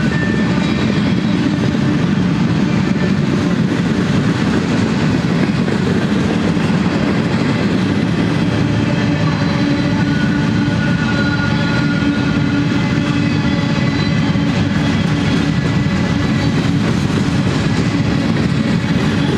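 Freight train of covered hopper cars rolling past: steady rumble of steel wheels on the rails, with a few thin steady whining tones over it.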